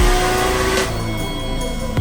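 Electronic music with a deep bass. A car engine revs with rising pitch through its first second, then drops out and the music carries on alone.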